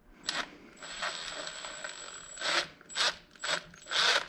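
Ratchet wrench clicking as bolts are tightened down on the engine: a run of quick clicking for a couple of seconds, then four short ratcheting strokes about half a second apart.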